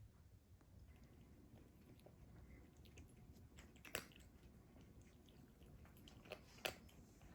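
A cat eating, heard faintly: soft chewing with scattered small crunches, two sharper ones about four seconds in and near the end.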